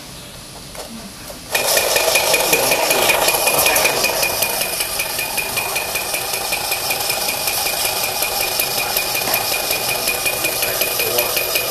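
Small electric motor of a Japanese battery-operated tin toy tug boat switching on suddenly about a second and a half in. It then runs steadily with a high whine and a fast rattle as it spins the propeller in the air.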